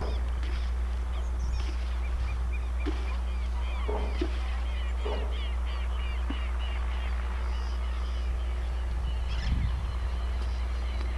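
Many birds calling: a rapid, continuous chatter of short, high, arched chirps, with a few lower calls in the middle, over a steady low hum.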